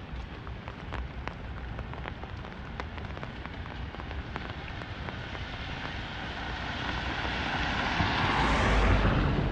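Raindrops pattering on an umbrella over a steady rain hiss, while a vehicle's tyres swish on the wet road, growing louder and passing close near the end.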